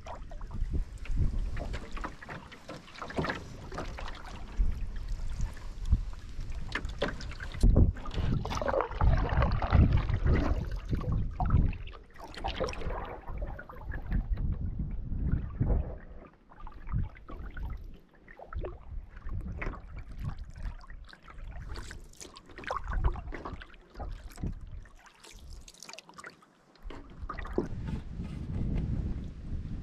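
Canoe paddle strokes dipping and splashing, with water swishing and lapping along the wooden canoe's hull, in an uneven rhythm.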